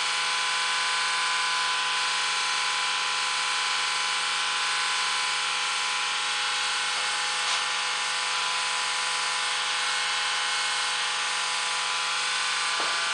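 Steady machine hum and hiss with several fixed whining tones, unchanging throughout.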